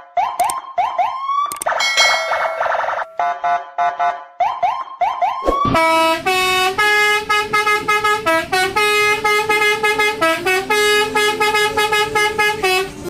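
A string of horn-like tones. First come short honks and upward-sliding notes. About six seconds in, long held notes take over, stepping up and down in pitch like a tune.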